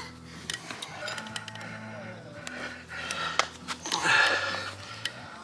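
Background music playing in a small room, with a few sharp clicks and knocks scattered through it.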